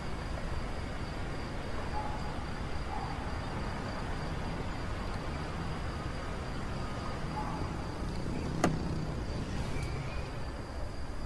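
A car running slowly: a low steady rumble of engine and road noise, with a faint steady high whine over it. A single sharp click comes about eight and a half seconds in.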